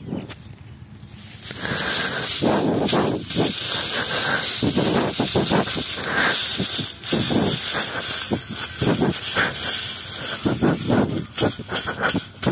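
Dry straw rustling and crackling close by, in a string of uneven bursts over a steady hiss that starts about a second and a half in.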